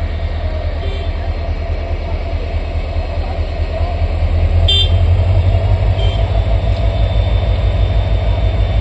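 Engine of a rail track-laying gantry machine running with a steady low throb that grows louder about four seconds in. A few short, high horn toots sound about a second in and again near five and six seconds.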